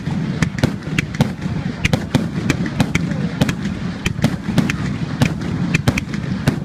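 Fireworks going off: a rapid, irregular string of sharp bangs and cracks, several a second, over a dense, continuous low din of more distant bursts.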